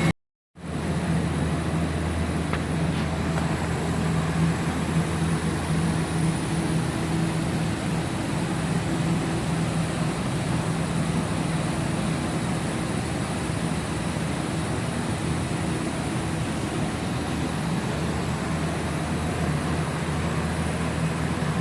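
CNC laser engraving machine running: a steady hum with a faint high whine, starting after a brief drop-out.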